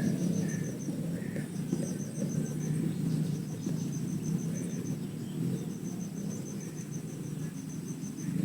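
An insect chirping in short trains of rapid, high-pitched pulses that start and stop every second or two, over a low, steady rumble.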